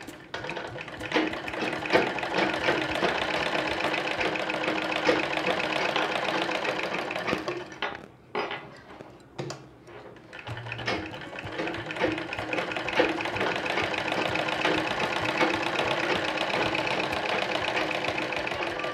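Sahara straight-stitch sewing machine running and stitching through cloth with a rapid, even clatter, a test seam to check the newly fitted bobbin. It runs in two spells, stopping for a couple of seconds about eight seconds in.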